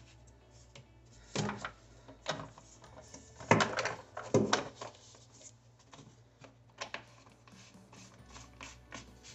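Drain trap and flexible extension tube being handled and fitted under a bathroom sink: a string of separate knocks and clicks, the loudest about three and a half to four and a half seconds in.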